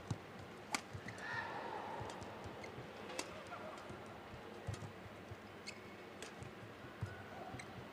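Badminton rally: sharp cracks of rackets striking the shuttlecock every second or two, with short squeaks of shoes on the court floor, over a steady low murmur from the arena.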